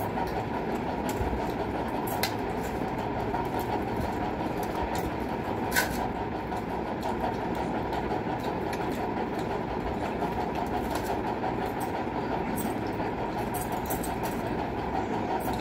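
Steady rumbling noise of a running electric fan blowing across the microphone, with a few light clicks of hands and food against steel plates.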